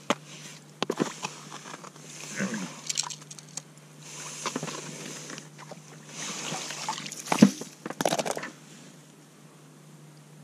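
Plastic ice skimmer scooping slush and ice chips out of an ice-fishing hole: short bursts of scraping and sloshing, with a sharp knock about seven seconds in.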